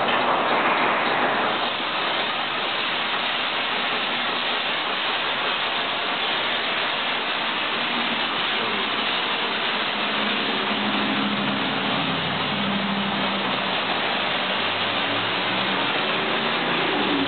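Water spraying steadily onto a car in a tunnel car wash, a dense, even hiss. From about halfway through, a low steady hum of a motor or idling engine joins under the spray.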